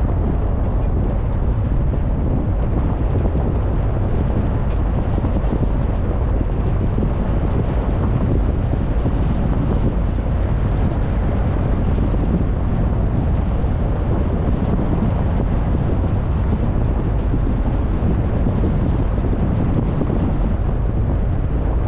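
Steady low wind rumble on the microphone of a camera riding in a moving car, mixed with road noise.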